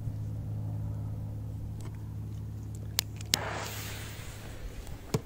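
A lighter clicks twice about three seconds in, then a firecracker fuse catches and hisses, fading out over a second or two, with another short click near the end. A steady low hum runs underneath.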